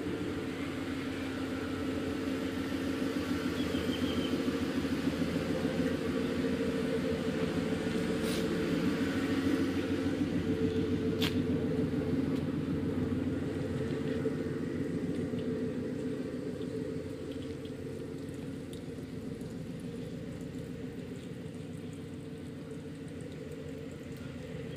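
An engine idling steadily: an even low hum with a fast regular pulse, easing off somewhat in the second half. Two short sharp clicks come about eight and eleven seconds in.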